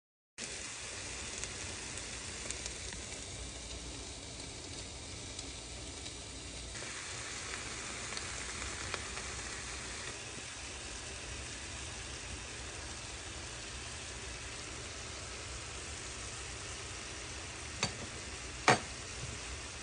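Chicken and vegetables frying in avocado oil in a nonstick skillet, a steady sizzle. Near the end there are two sharp clicks, the second louder.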